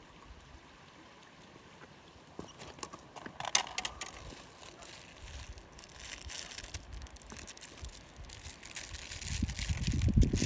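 Handling noise close to the microphone: scattered clicks, rubbing and rustling, with heavier low bumps toward the end as things are moved right next to the phone.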